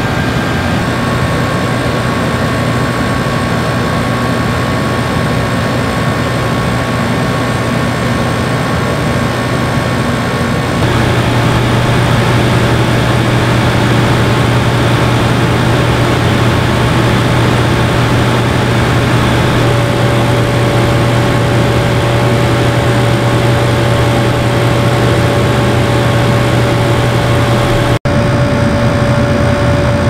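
Shinco 12,000 BTU portable air conditioner running with its compressor on: a steady low hum under the rush of its fan. It gets louder about a third of the way through, a faint steady tone joins later, and the sound cuts out for an instant near the end.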